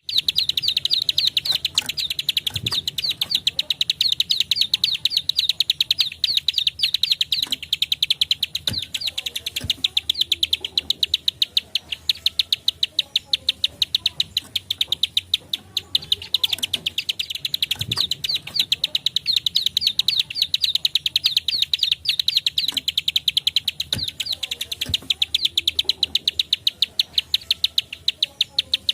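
Plain prinia (ciblek sawah, prenjak klik) singing a rapid, dense run of sharp repeated clicking notes, high-pitched and continuous, with a few short breaks.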